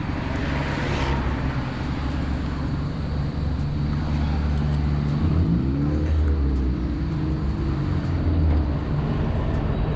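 A car's engine running while driving, a steady low hum with road noise; its pitch rises and falls once around the middle.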